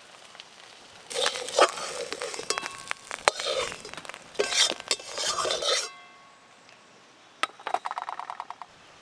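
Stainless-steel plates and utensils clattering and clinking, with sharp knocks and brief metallic ringing over several seconds. After a pause comes one sharp click, then a quick run of light ticks.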